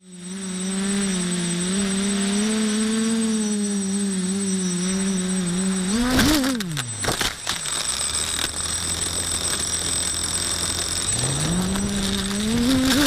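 The quadcopter's brushless motors (Sunnysky X2212 980kv on 10x5 props) hum steadily in flight, heard from the onboard camera. About six seconds in, the pitch surges, then drops away amid a clatter of sharp impacts as the copter crashes through branches into the forest floor. After a few seconds of low hum the motors spin up again, rising in pitch near the end, with a thin steady high-pitched whine underneath throughout.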